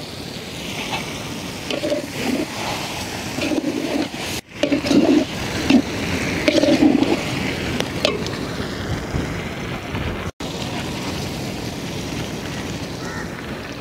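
Steel spatula stirring and scraping chicken pieces around a large aluminium pot, with short clicks of metal on metal over a steady rushing noise.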